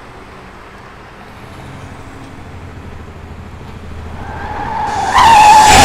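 Road traffic rumble that swells as a vehicle approaches, then a loud, wavering tyre screech from a vehicle skidding, beginning about five seconds in.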